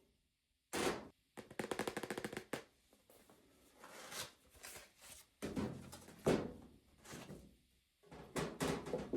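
Household items being handled and set down: a sharp knock, then a fast rattle lasting about a second, followed by softer knocks and handling noises.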